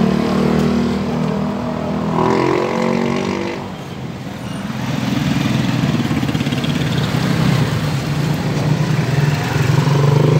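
A motor vehicle engine running: a pitched hum that shifts in the first few seconds, dips briefly about four seconds in, then holds a steady rumble.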